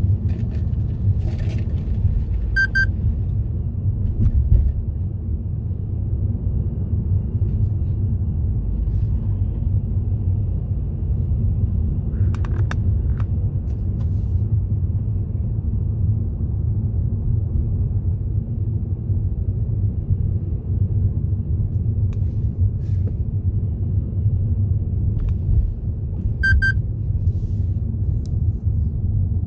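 Car driving along a road: a steady low rumble of tyres and engine, with two short high clicks, about three seconds in and near the end.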